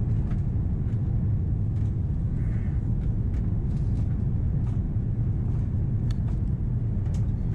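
Steady low cabin roar of an Airbus A330-300 descending to land, heard from a window seat beside the wing: engine and airflow noise, with a few faint clicks.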